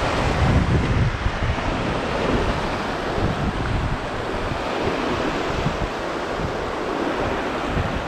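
Ocean swell surging and washing over a rock ledge, the surf breaking white against the rocks in repeated surges, with wind buffeting the microphone.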